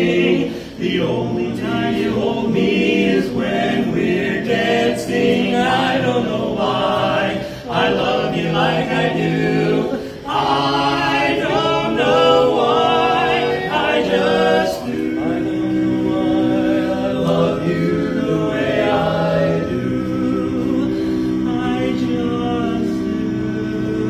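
Male barbershop quartet singing a cappella in four-part close harmony. From about fifteen seconds in, the voices hold long sustained chords to the end.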